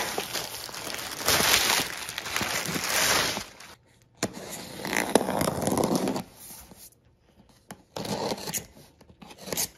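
Plastic shipping bag rustling as a cardboard box is pulled out of it for about three seconds, then packing tape on the box top being cut open in a few separate scraping strokes.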